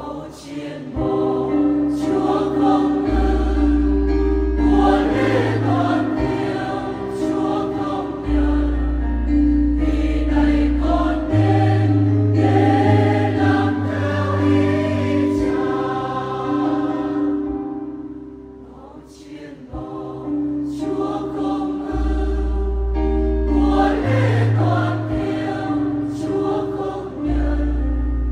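Large mixed choir of men and women singing the refrain of a Vietnamese Catholic hymn in harmony, over long held low bass notes. The singing eases off briefly about two-thirds of the way through, between phrases, then comes back in.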